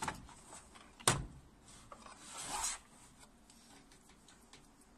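Small plastic wiring connector being handled and fitted by hand: a sharp click about a second in, then a brief scraping rub, with small ticks and taps.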